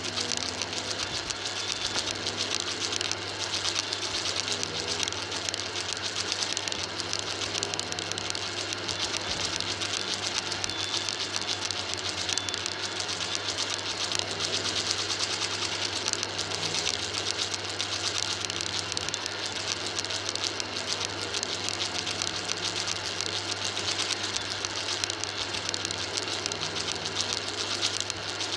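Upright vacuum cleaner running steadily, its floor head pushed back and forth over a carpet mat and sucking up crunchy debris, which crackles and ticks as the bits are drawn in over the motor's steady hum and rushing air.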